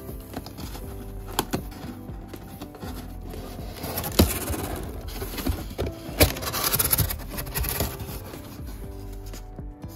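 Background music with scraping and rubbing of a plastic incubator against its cardboard box, and a few sharp knocks, the loudest about four and six seconds in.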